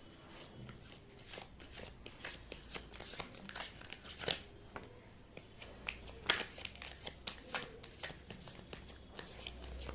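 Tarot cards being shuffled and handled by hand: an irregular run of light clicks and flicks of card stock, with a few sharper snaps about four and six seconds in.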